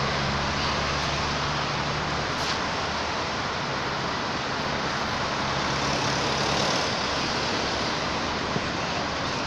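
Steady road traffic noise from cars and trucks passing on the road, with a low engine hum that eases off about two seconds in.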